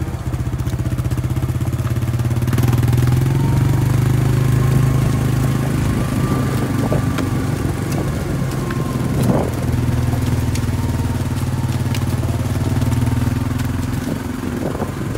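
A small vehicle engine running steadily at low speed, its note rising and falling a little.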